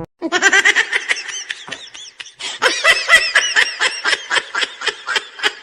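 High-pitched laughter: a rapid, unbroken run of short laughs, about three or four a second.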